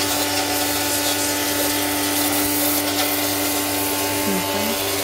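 Pressure washer running: the water jet hisses steadily against the chassis inside a car's wheel arch, over the even hum of the washer's pump motor, flushing mud out of the frame.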